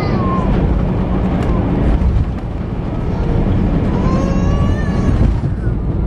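Cabin noise aboard an Airbus A321 rolling on the runway after landing: a loud, steady low rumble from the wheels and engines. A high-pitched voice sounds briefly about four seconds in.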